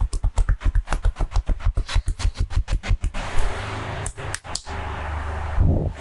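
Barber's hands slapping rapidly in a percussive chopping massage, about seven even strikes a second, stopping about three seconds in. Steady rubbing of hands over skin follows, with a few sharp clicks and a dull thump near the end.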